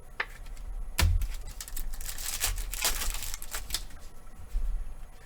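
Trading cards and packs being handled by hand: a sharp knock about a second in, then a quick run of clicks and crinkling, and a dull knock near the end.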